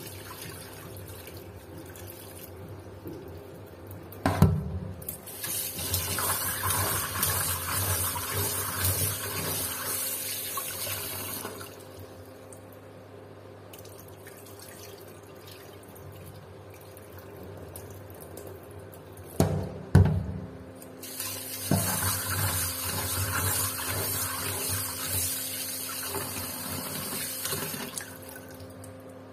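Tap water running into a steel pot of soaked black chickpeas in a stainless steel sink as they are rinsed. There are two sharp metal knocks, a few seconds in and again near the two-thirds mark. Each is followed by several seconds of louder splashing water.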